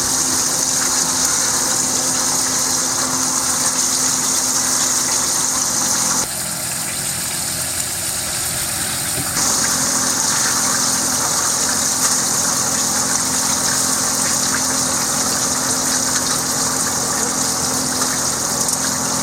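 Batter-coated chicken pieces deep-frying in hot oil in a skillet, sizzling steadily just after the second batch has gone in. The sizzle drops for a few seconds about six seconds in, then comes back.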